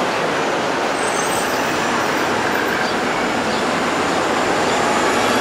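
A city bus driving past in street traffic: a steady, loud wash of engine and tyre noise.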